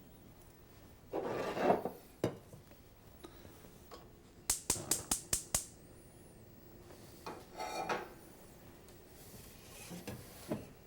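Kitchen pans and utensils being handled while setting up to cook: a short scrape, a knock, then a quick run of about six sharp clicks, and another short scrape.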